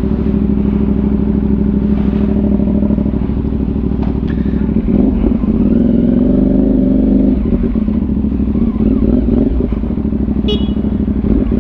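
CFMOTO 450NK's parallel-twin engine running through a newly fitted Orion Ara slip-on exhaust. It runs steadily, and the revs start to shift and vary about five seconds in.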